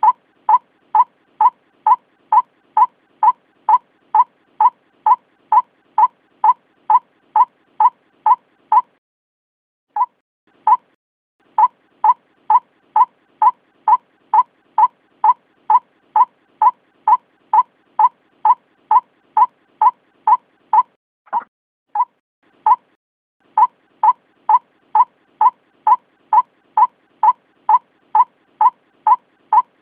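White-breasted waterhen calling: short, even notes repeated at about two a second in long monotonous runs, with brief breaks about nine seconds in and again after twenty seconds.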